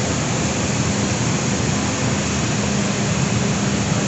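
Steady machinery drone inside the C-17A's cargo hold: an even rushing noise over a constant low hum, with no change in pitch or level.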